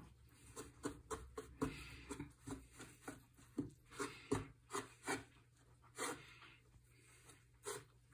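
A fork scraping and tapping against a wooden pastry board as it whisks eggs into a well of flour, in short irregular strokes about two a second.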